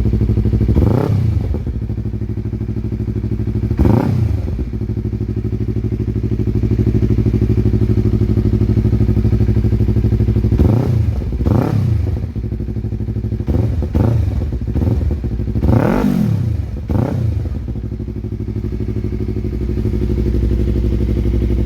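Yamaha R3's parallel-twin engine idling through a Yoshimura R77 exhaust with the silencer removed, blipped about seven times in short revs that rise and fall back to idle. The tone is soft with a strong bass, fairly mild for an open pipe.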